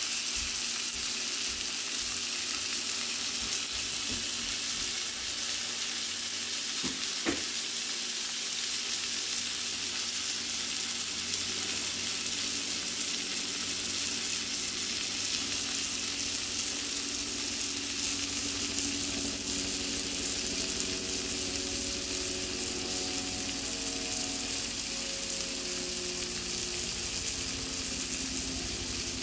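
King mackerel steak pan-frying in butter and garlic in a nonstick skillet: a steady sizzling hiss, with one brief click about seven seconds in.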